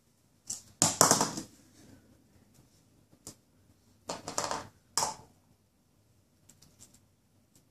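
Small plastic cups and a plastic spoon clattering and knocking on a tile floor as a baby handles them: a burst of rattling clacks about a second in, a single click near three seconds, another burst around four to five seconds, then a few light ticks.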